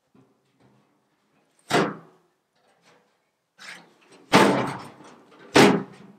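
Empty rusty metal barrel being tipped over and handled, giving three heavy hollow thuds, about two seconds in, a little past four seconds (the loudest, dying away over about half a second) and near the end, with lighter knocks between them.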